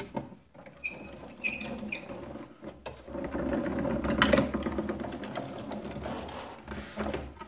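Press Boss manual die-cutting and embossing machine feeding a plate-and-die sandwich through its rollers to cut a frame from thick red cardstock, a steady grinding rattle lasting about four seconds from around three seconds in. Before it come a few short plastic squeaks and clicks as the clear cutting plate is laid on.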